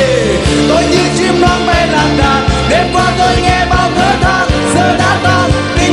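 Live pop-rock band with a steady drum beat backing a male singer, whose voice carries a wavering, drawn-out melody.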